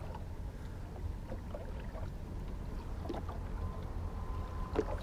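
Steady low rumble of a fishing boat on the water, with a few faint clicks and a thin steady whine that comes in about three seconds in.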